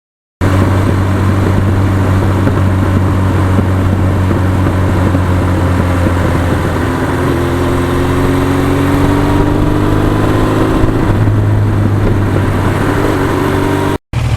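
1982 Suzuki GS1100E's air-cooled inline-four engine running steadily, its pitch rising gently partway through.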